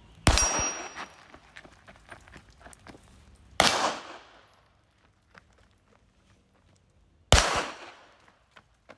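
Three pistol shots, spaced about three and a half seconds apart, each ringing out briefly after the crack.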